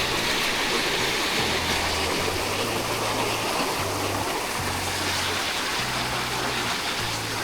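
River water rushing steadily. Low bass notes of music can be heard underneath.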